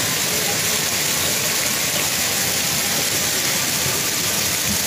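Heavy hail and rain falling hard on a road and parked cars, a dense, steady hiss.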